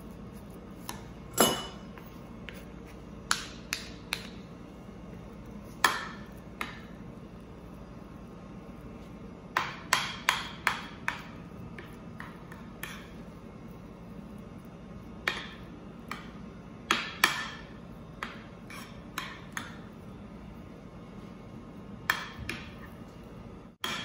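A metal spoon clinking and tapping against a glass baking dish while mashed potato is spread and smoothed in it: irregular sharp clinks with a short ring, some in quick clusters of three or four.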